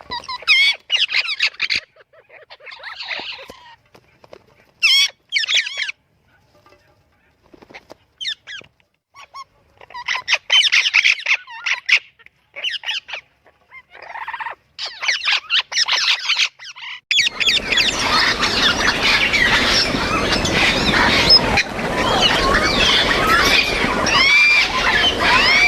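Parrots squawking and making whistled calls in short bursts separated by pauses; about two-thirds of the way through, it becomes a loud, continuous din of many birds calling at once.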